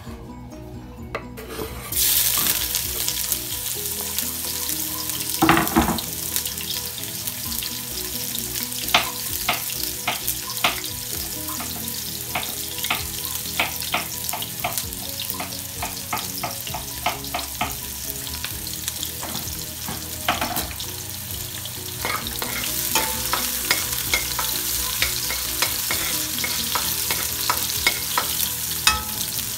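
Onions sizzling in hot oil in a pot. The frying starts suddenly about two seconds in and then runs steadily, while a spoon clicks and scrapes against the pot as they are stirred. There is one louder knock near the start.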